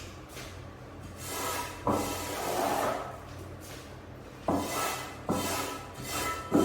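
Scrubbing brush working a wet, foamy carpet in separate strokes. There are four strokes, each starting suddenly, one every second or two.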